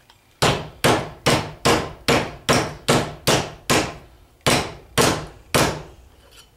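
About a dozen rubber-mallet blows on a Speedi-Sleeve installer driver, at an even pace of two to three a second with a short ring after each, stopping near the end. The blows are driving a Speedi-Sleeve down over the worn seal groove of a transfer case front output yoke until it bottoms out.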